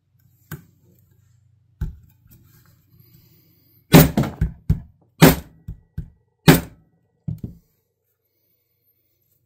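Hammer blows on a leather slip laid on a wooden beam, dull knocks. Two light taps come first, then a quick run of about ten heavier blows between about four and seven and a half seconds in.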